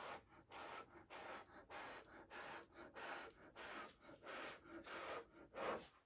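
A person blowing short puffs of breath onto wet poured acrylic paint on a canvas, about a dozen puffs at roughly two a second, the last one the loudest. The breath stands in for a hairdryer, spreading the paint lines of a Dutch pour into feathery ribbons.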